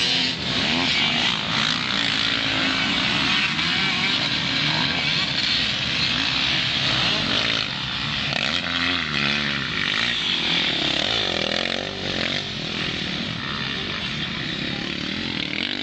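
Several motocross dirt bikes racing past, their engines revving up and down through the corner, growing a little fainter over the last few seconds as they ride away.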